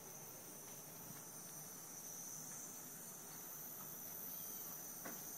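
Quiet room tone with a faint, steady high-pitched whine, and one soft click near the end.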